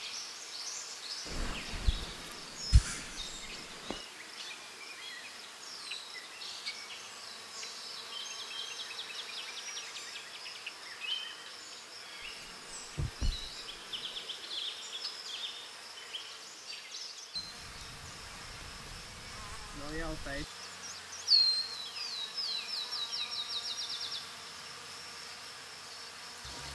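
Forest ambience: small birds singing fast, repeated trills of high chirps, the loudest one near the end, over a steady high buzz of insects. A few low thumps from handling come near the start and about halfway through.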